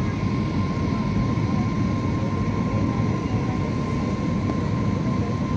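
Steady cabin noise inside a jet airliner descending on its landing approach: a low rumble of engines and rushing air, with a thin steady whine above it.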